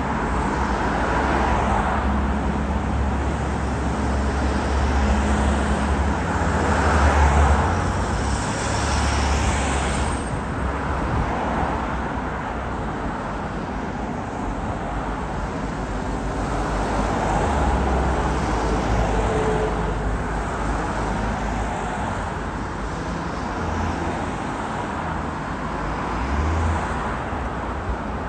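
Road traffic on a multi-lane road: cars passing close by one after another, with tyre and engine noise over a continuous low rumble. The noise swells as each car goes by, loudest about seven seconds in.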